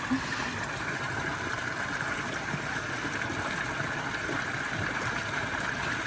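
Spring water at a holy well running steadily.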